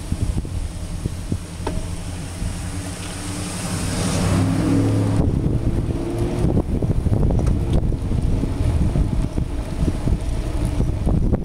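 A car approaching and passing close by, its engine and tyre noise growing to a peak about four to five seconds in and then dropping away suddenly. After that come wind buffeting the microphone and short knocks and rattles from the bicycle riding on.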